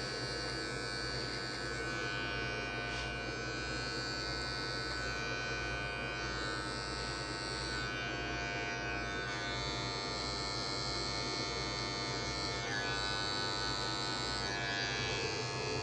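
Electric hair clipper running steadily, its blade cutting hair clipper-over-comb.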